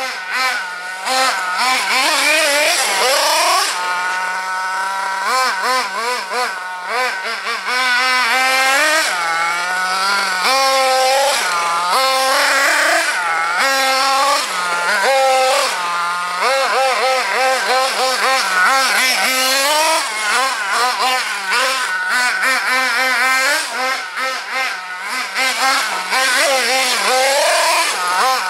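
Small two-stroke nitro engine of a Hobao Hyper ST 1/8 truggy, a Mac28 six-port, revving up and down over and over with a constantly wavering pitch, with a few short steadier stretches. The engine is tuned slightly rich from factory settings.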